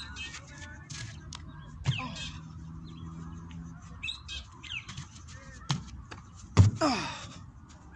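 Birds chirping throughout, with a dull thump late on, the loudest sound, fitting bare feet landing a flip on hard dirt; a smaller knock comes just before it.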